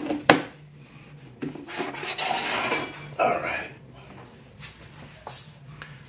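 The plastic top cover of a Honeywell warm mist humidifier clacking twice as it is pressed onto the base. Then the filled unit is shifted across the laminate floor, with about two seconds of scraping and rubbing and a few light knocks after.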